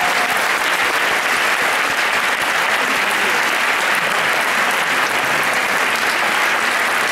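A large seated audience applauding, a dense, even clapping that holds at a steady level.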